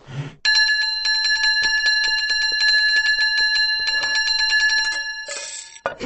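A bell rung rapidly and continuously for about five seconds: a fast, even trill of strikes ringing with the same bright tones throughout. It stops with a short rattle and a sharp knock near the end.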